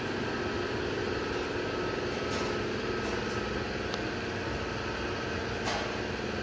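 A steady mechanical hum of a running motor, with a few faint clicks.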